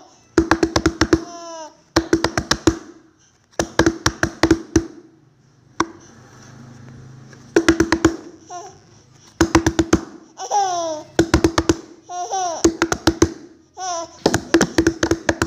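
A baby slapping her hands on a wooden table in quick bursts of several knocks, repeated every second or two, while squealing and laughing.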